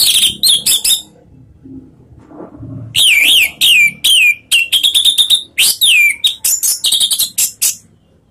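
Orange-headed thrush singing loudly: rapid phrases of high whistles that slur downward, mixed with quick chattering notes. A short burst opens, then a pause of about two seconds, then a long run of song that stops shortly before the end.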